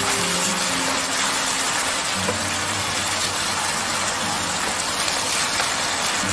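Marinated beef short ribs (LA galbi) sizzling steadily in a hot pan in their soy-based marinade, with soft background music underneath.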